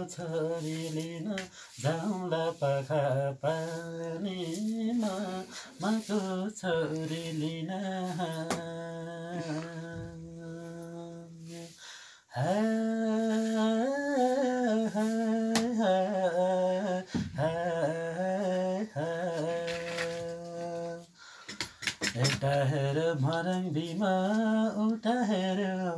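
A young man singing a Nepali song solo without accompaniment, a slow melody with long held notes, breaking off briefly about halfway through.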